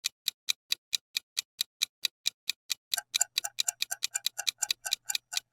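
Countdown-timer ticking-clock sound effect: even sharp ticks about four to five a second, becoming a quicker, fuller double tick about halfway through.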